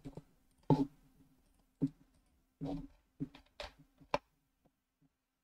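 A few short clicks and knocks at irregular intervals, over a faint steady hum, with near silence near the end.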